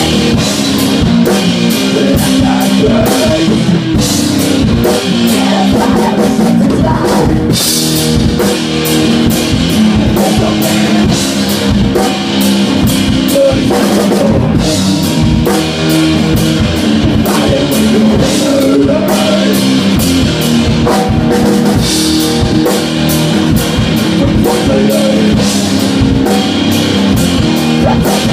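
Live rock band playing: drum kit and electric guitar, with a cymbal crash about every seven seconds.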